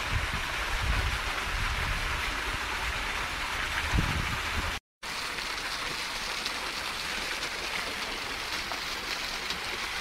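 Water of a small artificial rock waterfall splashing steadily into its pool, a constant hiss, with some low rumbles in the first half. The sound cuts out completely for a moment just before the middle, then the splashing goes on.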